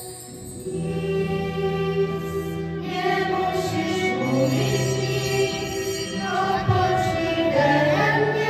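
Church choir of women's and girls' voices singing a worship song in unison with held notes, accompanied by guitar and violin. The voices come in after a brief lull right at the start.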